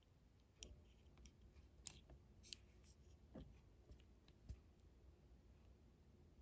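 Faint handling noises of a small plastic model and its packaging: a few light clicks and taps spread over several seconds.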